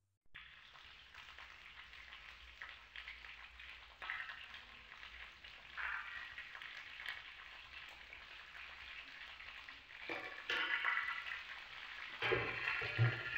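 Chopped onions sizzling faintly in hot oil in a kadai on a low flame, with a steel spoon stirring and scraping through them, a few strokes louder than the rest.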